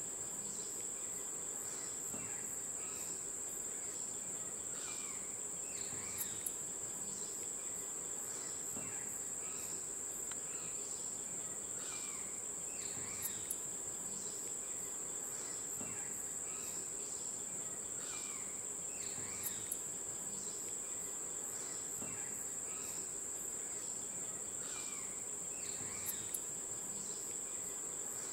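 A steady, high-pitched insect chorus drones throughout, with faint falling chirps repeating beneath it. A pair of quick sharp ticks comes about every six to seven seconds.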